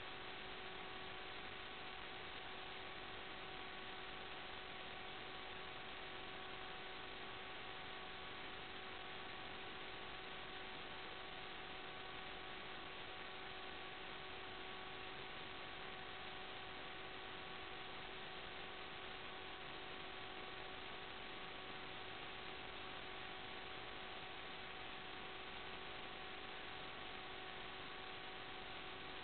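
Steady electrical hiss with a faint hum of a few steady tones and nothing else, the noise of an empty audio channel.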